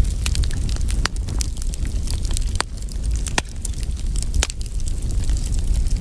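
Campfire crackling: frequent, irregular sharp pops and snaps over a steady low rumble.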